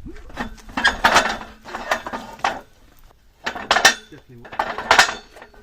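Sledgehammer blows on a steel track pin being driven into a steel excavator track: four metallic clanks with ringing, about a second apart.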